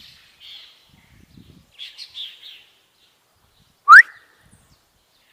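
Faint bird chirps, then about four seconds in one short, loud whistle that sweeps sharply upward in pitch.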